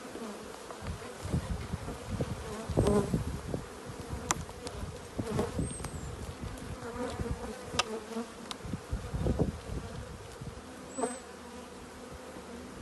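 Carniolan honeybees humming steadily from an open hive, the hum of a calm colony sitting tight on the combs. Irregular low rumbles and a few short sharp clicks come through the hum.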